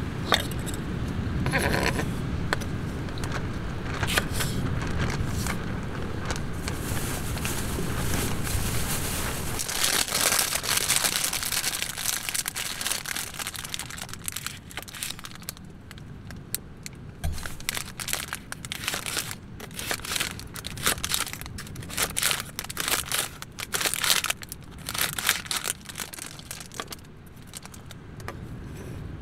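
Knife cutting vegetables on a wooden cutting board: green peppers, then a Japanese leek sliced into rounds, the blade tapping the board irregularly through the second half. A steady low rumble fills the first third.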